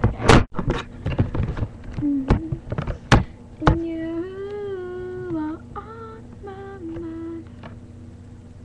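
Several sharp knocks and bumps of the webcam being handled, then a girl's voice humming a short tune of a few steady, held notes for about four seconds.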